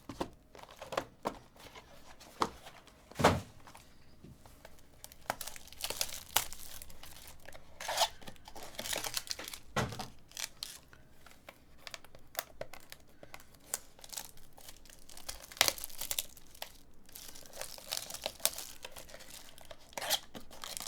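Trading-card packaging being torn open and crinkled, with cards and cardboard being handled in many short crackles and clicks, and a couple of heavier knocks, about three seconds and ten seconds in.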